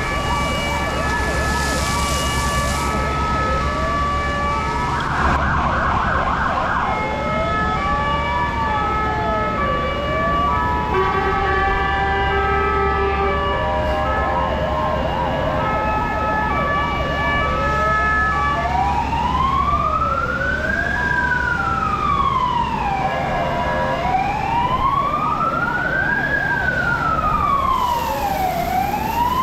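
Several fire engine sirens sounding at once: steady alternating two-tone notes, fast yelping warbles, and slow wails that rise and fall about every five seconds, taking over in the second half. A steady low hum runs beneath them.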